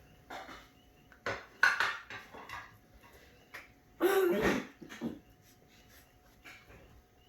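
Puppies gnawing frozen marrow bones: the bones knock and scrape against a hard floor in a few sharp clacks, with a brief louder pitched vocal sound about four seconds in.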